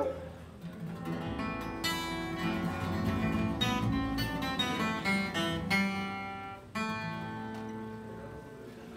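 Two acoustic guitars picking an instrumental ending over upright bass, the last notes ringing and dying away near the end as the song finishes.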